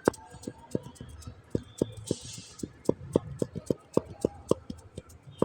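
A series of sharp knocks or taps, irregularly spaced at about three a second, with a brief hiss about two seconds in.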